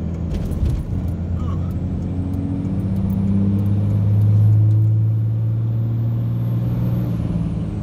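5.9 Cummins turbo-diesel in a third-generation Dodge Ram, heard from inside the cab while driving. The engine drone grows louder toward the middle under load. A thin high turbo whistle climbs, holds, and then drops away near the end.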